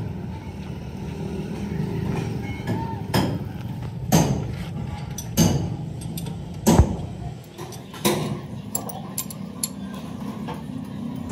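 Metal hand tools clinking and knocking against a tractor's engine parts and bolts: a handful of separate sharp knocks a second or so apart, then a run of quicker light clicks near the end.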